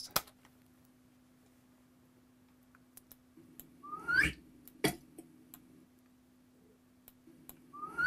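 A short whistle-like sound effect sliding upward in pitch, played back by the web page as the circle is dragged, heard twice about four seconds apart. Sharp computer-mouse clicks fall around it.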